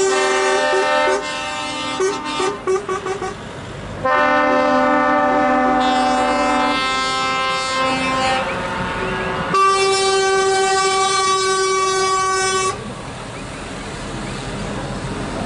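Trucks' air horns sounding in turn as a convoy of lorries passes: a series of short repeated blasts at first, then two long multi-note chord blasts, the second ending about thirteen seconds in, leaving the passing engines running.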